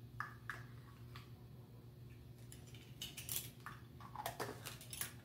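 Faint clicks and taps of a set of plastic measuring spoons knocking together and against a spice jar as cayenne pepper is measured out, scattered irregularly with a small cluster around the middle, over a faint steady hum.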